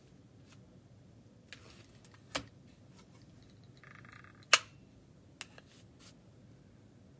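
A short buzzy electronic beep from a health monitoring station, sounding as its body-temperature reading comes up, amid several sharp clicks; the loudest click comes right after the beep, about four and a half seconds in.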